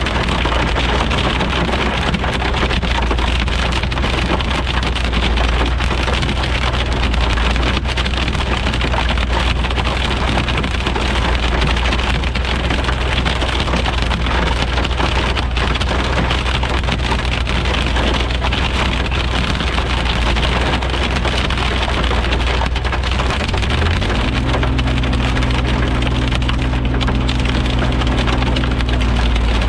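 Heavy thunderstorm rain beating down in a dense, steady patter of drops over a constant low hum. About three-quarters of the way through, a steady droning tone joins in.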